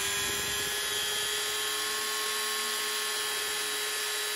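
Handheld rotary tool running at a steady speed with an even high whine, its small grinding bit held against the epoxy coat of a wooden lure to smooth it down.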